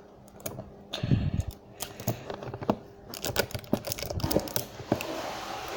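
Irregular clicks, taps and scrapes of hands working at a taped cardboard toy box, with a dull thump about a second in.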